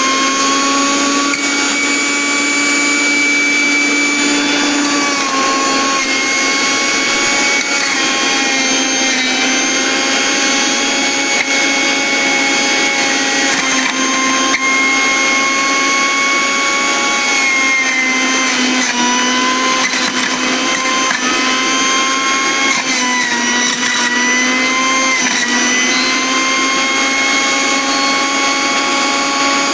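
Sujata Powermatic Plus 900-watt juicer mixer grinder running as a centrifugal juicer, a steady motor whine. Its pitch dips slightly a few times as sweet lime halves are pushed down the feed chute onto the spinning blade.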